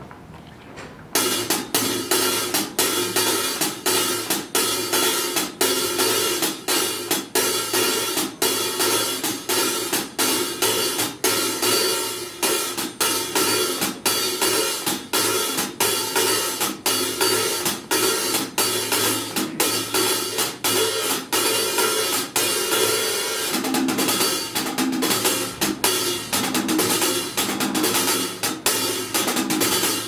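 Solo hi-hat played with drumsticks: rapid, dense strokes on the hi-hat cymbals that start about a second in and keep going without a break.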